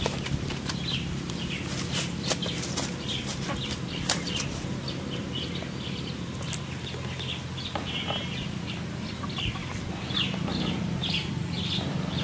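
A fish flapping and thrashing in a cast net while hands rustle the mesh to work it free, making a run of irregular slaps and clicks. Short bird calls sound in the background at scattered moments.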